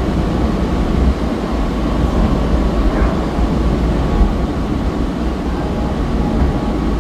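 Aria Express cable-hauled people mover tram in motion, heard from inside the car: a steady low rumble with a faint steady whine over it.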